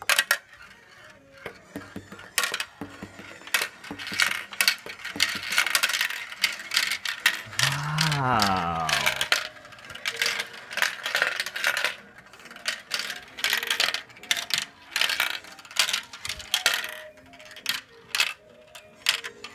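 Marbles clicking and rattling down a plastic marble run, a long run of quick, irregular clicks as they drop through the tubes, funnels and chutes.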